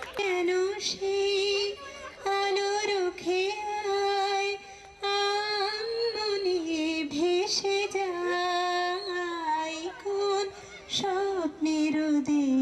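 A woman singing solo, holding long notes with short breaks between phrases.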